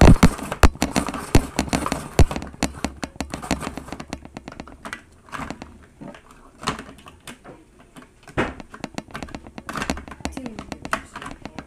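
Ice cubes clattering and knocking in a toy snow cone maker as it is worked, with dense irregular clicks and knocks in the first couple of seconds, then scattered knocks. The machine is overfilled with ice cubes.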